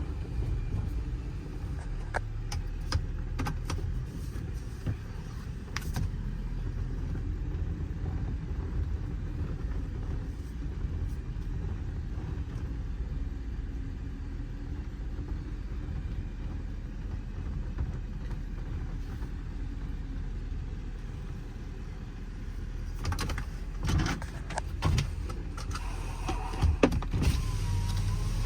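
Ford F550's 6.7-litre Power Stroke V8 turbodiesel heard from inside the cab while driving: a steady low engine and road rumble. A cluster of clicks and knocks comes near the end.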